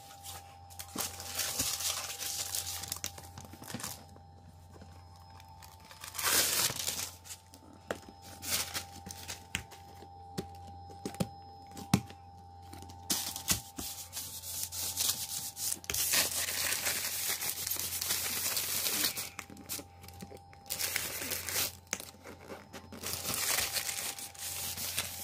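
Paper release backing from self-adhesive vinyl floor tiles crinkling, rustling and peeling in repeated bursts as it is handled and rubbed over the tile.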